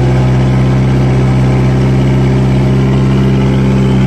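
Kubota MU4501 tractor's four-cylinder diesel engine running steadily at close to 2,000 rpm under the load of an 11-tine cultivator.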